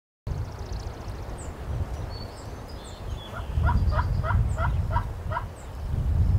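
A run of about seven turkey yelps, each breaking from a low note to a higher one, starting about halfway through. Underneath is a steady low rumble of wind on the microphone, with faint high songbird chirps.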